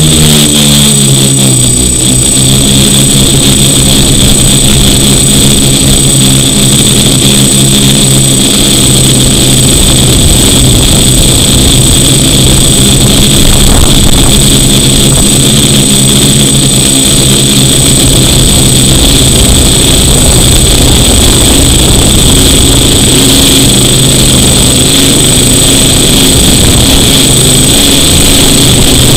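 DJI F450 quadcopter's electric motors and propellers, heard from a camera mounted on the frame: a loud buzz whose pitch settles in the first second, then holds steady with a constant high whine above it as the drone flies low.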